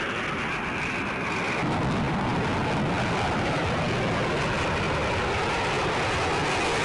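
Jet aircraft of the Black Eagles display team, KAI T-50B jets, flying overhead: a steady engine rush that grows a little louder about two seconds in.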